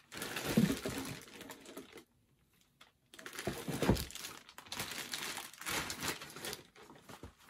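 Clear plastic shoe bag crinkling in irregular bursts as a sneaker is worked out of it, with a pause of about a second about two seconds in.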